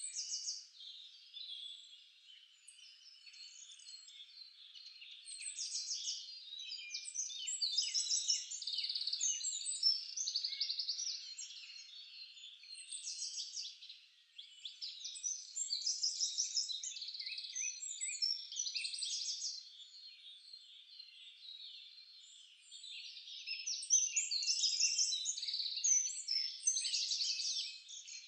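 Many small birds chirping and twittering in a dense chorus of short, quick, high calls and trills, swelling and fading in waves.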